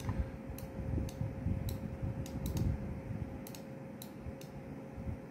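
Light, irregular clicks of a computer mouse, about ten of them, as a fan-curve setting is adjusted, over a steady faint hum.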